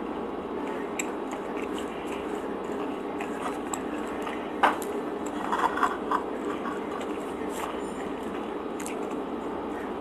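Eating sounds from chewing a soft French bread sandwich, with one sharp tap a little under halfway and a few small clicks a second later as the sandwich is set down on a ceramic plate. A steady background hum runs underneath.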